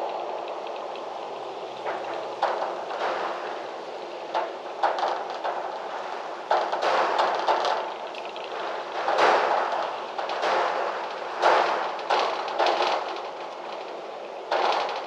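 Gusty wind rushing, broken by many sudden sharp gusts that come and go every second or so through the middle.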